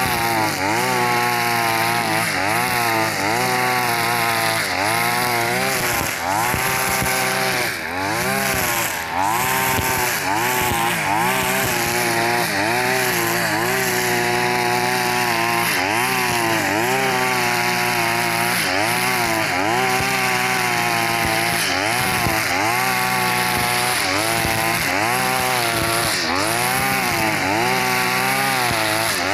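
A 42cc backpack brush cutter running at high revs, its square nylon trimmer line cutting grass. The engine pitch dips and recovers about once a second as each sweep of the cutting head loads it, over a steady hiss of line whipping through the grass.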